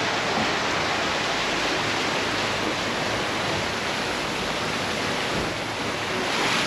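Steady rush of a squall at sea: heavy rain, strong wind and waves breaking against the catamaran's hull blend into one even noise, swelling briefly near the end.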